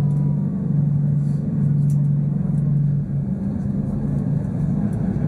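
Engine of a semi-submersible viewing boat running steadily, heard as a loud low drone inside its underwater cabin; its note steps up a little about three seconds in.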